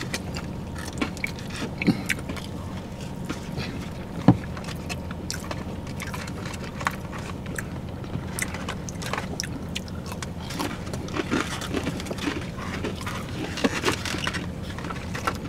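People biting into and chewing crispy fried boneless chicken wings: scattered irregular crunches and small clicks over a steady low hum. A sharp click about four seconds in is the loudest sound.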